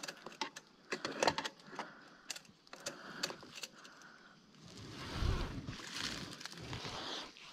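Short metallic clicks and rattles of a bicycle being handled, its broken rear derailleur and gear cable being worked on, then a low rumbling noise from about four and a half seconds in.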